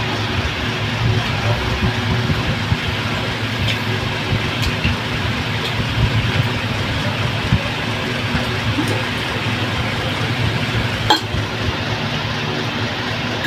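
A steady mechanical hum runs throughout, with a few light clinks of a metal fork against a ceramic plate, the clearest about eleven seconds in.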